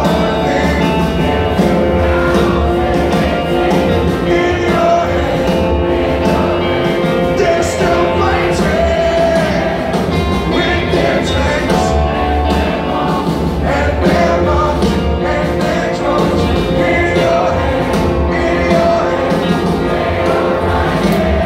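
Rock band playing live through a concert PA, with sung vocals over the full band; loud and steady throughout.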